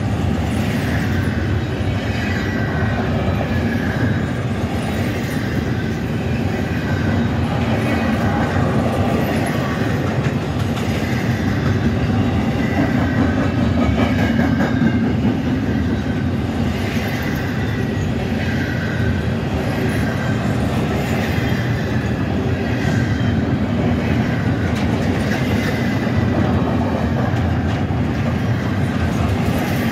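Double-stack container cars of a freight train rolling past close by: a steady rumble with the clickety-clack of wheels over rail joints, and faint, wavering wheel squeals that come and go.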